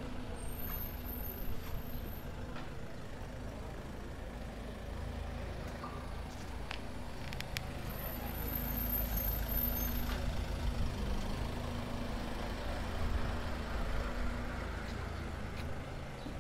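Town ambience dominated by the steady low rumble of a motor vehicle engine running, swelling a little in the middle, with a few faint clicks.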